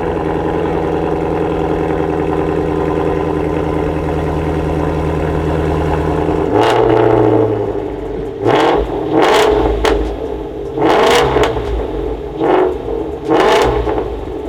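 Ford Shelby GT350's 5.2-litre flat-plane-crank V8 idling steadily through a Corsa X-pipe with the resonators deleted. About six and a half seconds in it is revved in about six quick throttle blips. That's a big difference.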